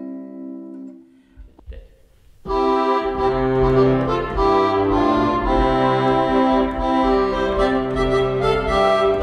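Casio Privia digital piano playing a tune in held, organ-like notes over a steady bass line, starting about two and a half seconds in. The last held notes of an earlier piece fade out just before it.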